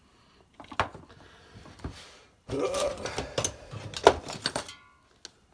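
Clear vinyl tubing being handled and worked through a hole in a plywood board: rubbing, rustling and scattered clicks, busiest in the second half, with a sharp click about four seconds in.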